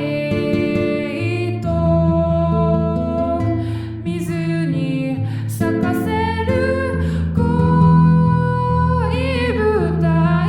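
Instrumental passage of a Japanese ballad: guitar and backing with a lead melody that slides between notes, with a gliding run near the end.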